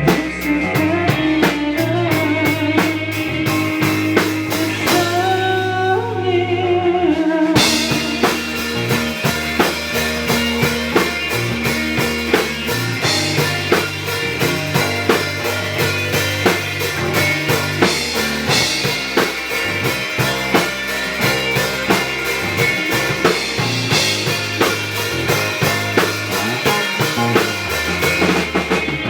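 Rock band playing: bass and a held, gliding melody line over a sparse beat, then the full drum kit comes in with cymbals and a steady beat about seven seconds in, with guitars.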